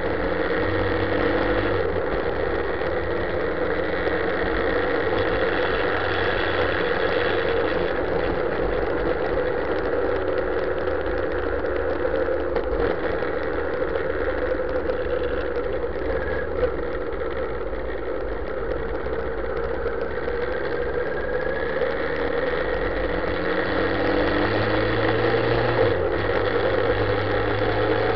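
Motorcycle engine running steadily at moderate revs while riding. Near the end it gets louder and rises in pitch as the bike accelerates.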